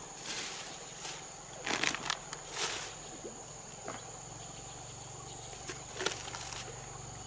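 Insects droning with a steady high-pitched tone, with several brief rustles and clatters of fishing gear and a bait bowl being picked up on a stony bank.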